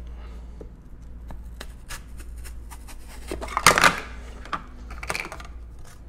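Potato pushed repeatedly across the blade of a plastic microwave chip maker's slicer lid: a run of short scraping strokes and light clicks as paper-thin slices drop into the plastic bowl, with a louder plastic clatter a little past halfway.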